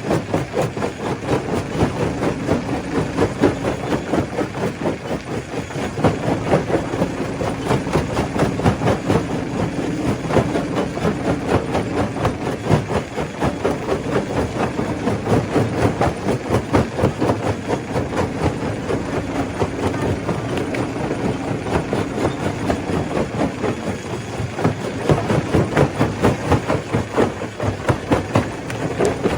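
Stone crusher machine running: a steady hum under a dense, rapid clatter of rock being broken.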